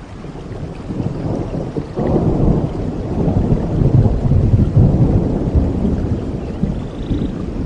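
Heavy rain falling, with a long roll of thunder that swells sharply about two seconds in, rumbles on heavily and slowly fades.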